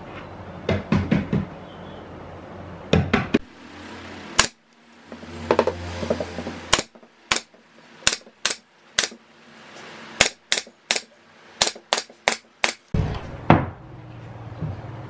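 Pneumatic brad nailer firing a run of about a dozen sharp shots, two to three a second, into plywood joints. Before the shots there are a few clusters of wooden knocks as the plywood panels are handled and set in place.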